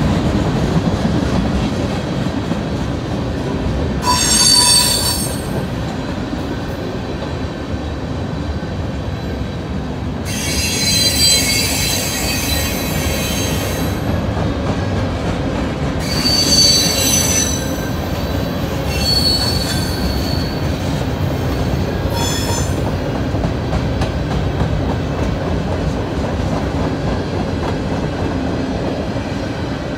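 Freight cars of a CSX mixed freight train rolling steadily past, with several bouts of high-pitched wheel squeal: about four seconds in, a longer one from about ten to fourteen seconds, then three shorter ones before the second half goes back to the steady rumble.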